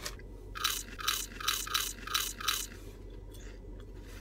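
A person biting and chewing thin, crisp potato chips: about six sharp crunches in two seconds starting about half a second in, then softer chewing.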